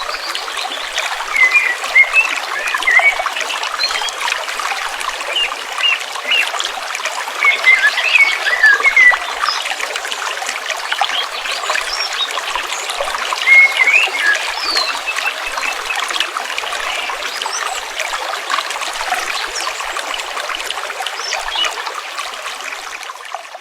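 Small stream trickling steadily, with short bright plinking gurgles in clusters now and then. It fades out near the end.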